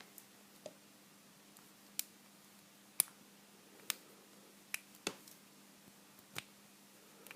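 Sharp, irregular clicks of a lock pick working the pins of a vintage Corbin pin tumbler padlock, about eight clicks spread over several seconds. A high third pin keeps the pick from getting under it.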